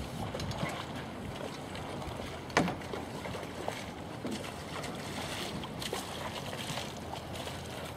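Steady outdoor wind rumble and hiss on the microphone, with a single sharp knock about two and a half seconds in.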